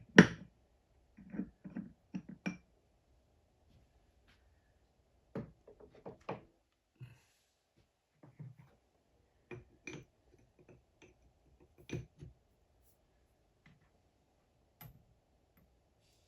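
Intermittent knocks and clicks of small metal parts and tools being handled on a workbench, with a sharp knock at the very start the loudest, then small groups of taps spread through the rest.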